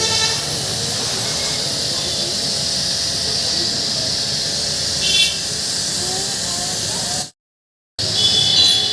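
High-pressure washer jet spraying water with a steady hiss, broken by short squealing tones about five seconds in and again near the end. The sound cuts out completely for about half a second shortly before the end.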